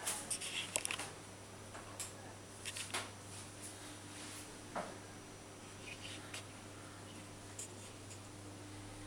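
Handling noise from a handheld camera being moved around a small tiled room: scattered light clicks and knocks, most of them in the first three seconds, over a steady low hum.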